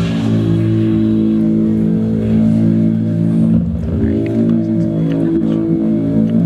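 Music with sustained low, pitched instrumental notes, a slow chord-like melody without vocals.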